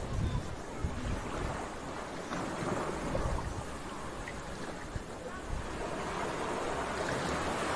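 Sea waves washing steadily, with wind rumbling on the microphone.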